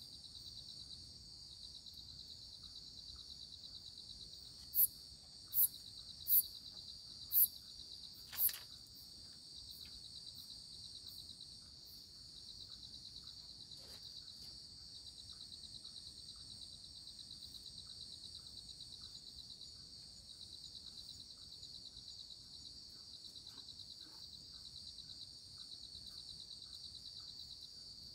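Steady chorus of night insects in tropical forest, a fast pulsing high-pitched chirr. A few seconds in come five sharp clicks or pops, roughly a second apart, louder than the chorus.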